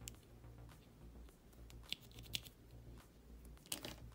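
Small, sharp clicks from handling a latching push-button switch from an amplifier, its spring-loaded plunger and plastic body clicking, then a short clatter as the switch is put down on the work surface near the end.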